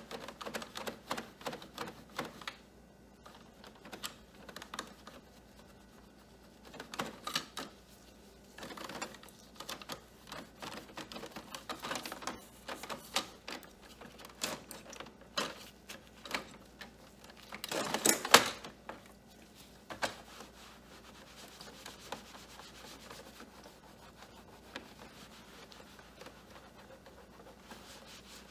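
Cloth wiping and rubbing over a printer's plastic casing and paper tray in uneven strokes, with occasional plastic clicks and knocks as the tray is handled. The loudest rubbing comes about eighteen seconds in, and it is fainter over the last several seconds.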